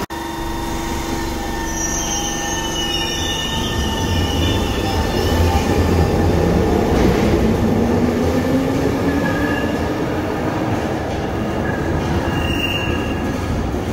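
Glasgow Subway train pulling out of an underground station. Wheels rumble on the track with high-pitched wheel squeal, and a whine rises in pitch from about five seconds in.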